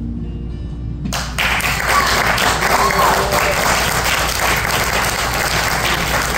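Last acoustic guitar chord ringing out, then audience applause breaks out suddenly about a second in and carries on, with a voice or two among the clapping.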